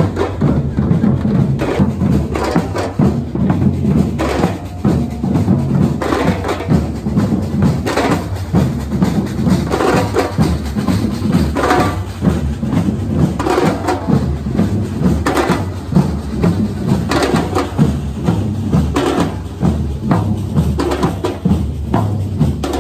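A large street drum band playing together: big bass drums (surdos) struck with mallets, snare drums and tall hand drums beating a steady, loud rhythmic groove.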